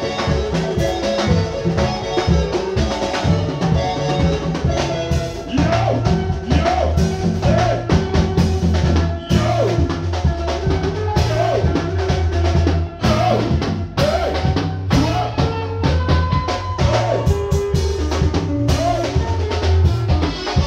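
Live band playing instrumental music: a drum kit with bass drum and snare hits, electric guitars and deep bass notes. The bass becomes heavier about five seconds in.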